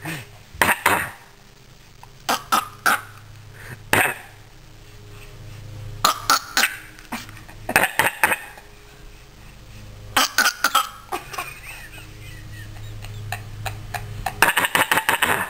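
Baby giving short, deliberate coughs in little clusters of two to four, a cluster every second or two, coughing to communicate rather than from illness.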